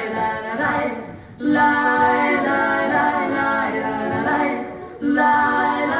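A song with singing voices, dipping briefly twice: about a second in and again just before five seconds.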